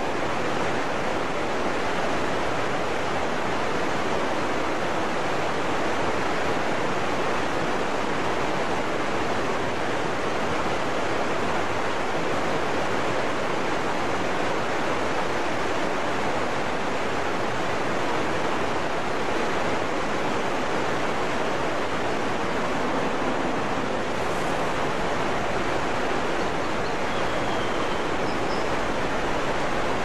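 Large waterfall pouring down a rock face: a steady, unbroken rush of falling water.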